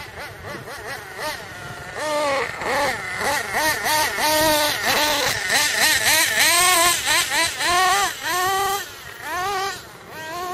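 GS Racing Storm Evo RC buggy's 3.5 cc (.21) two-stroke nitro glow engine on 16% nitro fuel, revving up and down again and again as the buggy is driven. It grows loud about two seconds in and is loudest around the middle, with quick short revs near the end.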